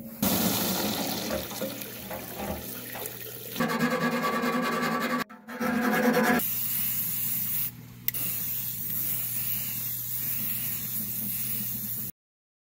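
Water splashing out of a cut-open steel gas can, then an aerosol spray-paint can hissing as it is sprayed. The sound stops abruptly near the end.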